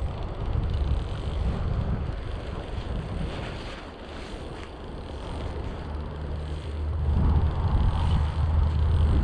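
Wind buffeting the microphone in uneven gusts, growing stronger about two-thirds of the way through, over the steady rush of a mountain stream.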